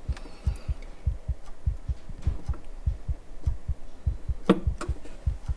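A steady, fast, low thumping beat, about four to five thumps a second, with two faint clicks about four and a half seconds in.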